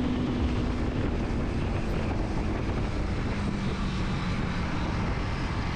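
Yamaha MT-15's 155 cc single-cylinder engine running at highway speed under heavy wind rush on the microphone, its steady note easing slightly lower partway through.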